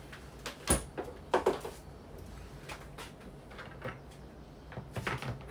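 A few sharp knocks and clatters of kitchen things being handled and set down on a hard worktop. There is one loud knock about a second in, two quicker ones just after, and a short cluster near the end.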